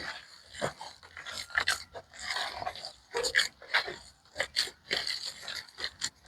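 Hands squeezing and kneading wet corn masa with beans, oil and water: irregular squelching and slapping of soft, watery dough.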